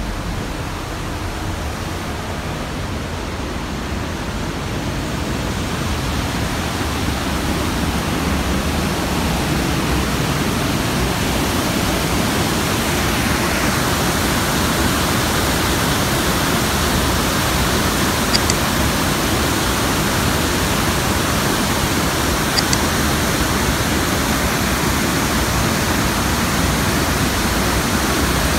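Iguaçu Falls: a steady roar of water rushing over the falls, growing louder over the first several seconds and then holding steady.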